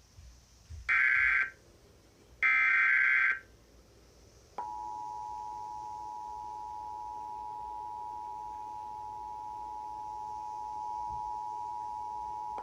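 Emergency Alert System broadcast tones: two short, loud bursts of the SAME digital header data. About four and a half seconds in, the steady two-tone attention signal starts and holds, the signal that announces the National Weather Service severe thunderstorm warning to follow.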